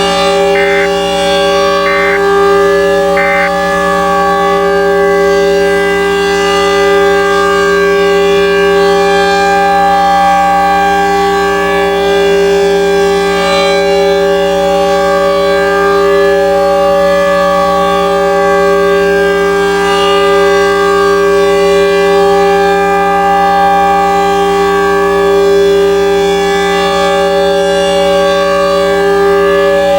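Outdoor civil defense warning siren sounding a steady, slightly wavering tone. Near the start come three short electronic data bursts about a second apart, the EAS end-of-message tones that close the tornado warning broadcast.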